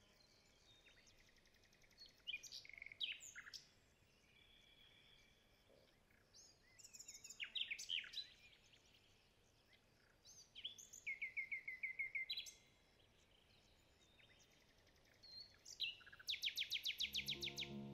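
A songbird singing in short, varied high phrases, about four seconds apart. The last phrase ends in a fast trill. The background is otherwise quiet.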